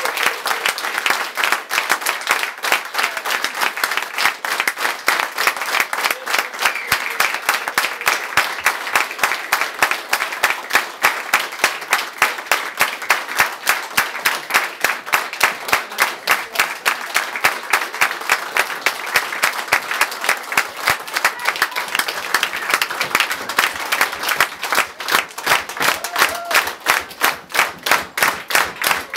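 Concert audience applauding, the clapping falling into an even rhythm in unison, about three claps a second, most distinct near the end.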